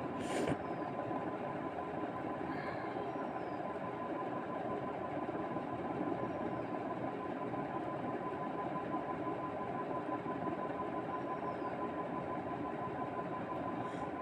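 Steady mechanical hum with a thin, steady high whine running through it, and a short click about half a second in.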